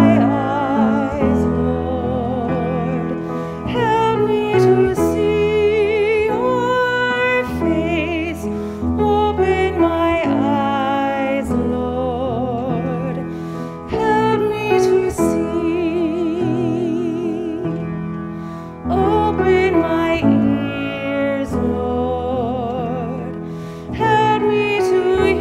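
A woman sings solo in a classical, operatic style with wide vibrato, accompanied by piano chords on a grand piano. The song goes in long phrases with short breaks between them.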